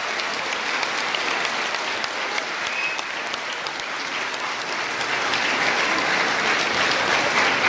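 Congregation applauding: steady clapping that swells a little near the end.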